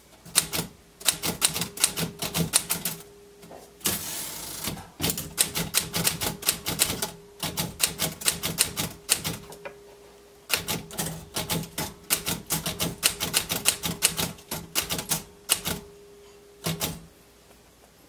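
Royal manual desktop typewriter being typed on: quick runs of sharp key strikes in bursts, with short pauses between them. A brief sliding rasp comes about four seconds in.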